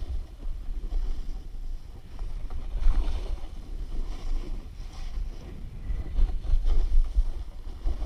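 Snowboard sliding and scraping over snow while riding, with wind buffeting the GoPro's microphone in an uneven low rumble that swells around the middle and again near the end.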